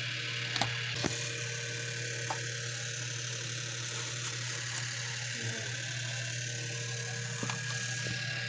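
A steady low hum with a hiss over it, broken by a few light clicks about half a second, a second and two seconds in.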